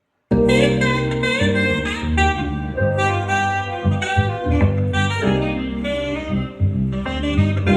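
Smooth jazz track with a solo saxophone playing the melody over a backing band, starting suddenly a moment in.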